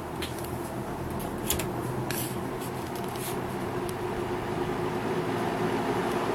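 1975 Kmart K-223 20-inch box fan running with a steady hum that grows gradually louder, with a few light ticks.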